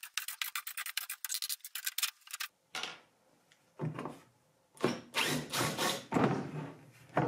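Makita cordless drill backing screws out of a metal leg-mounting plate on a wooden tabletop, heard as a quick run of sharp clicks for about the first two and a half seconds. Then come several separate scraping and rubbing noises against the wood.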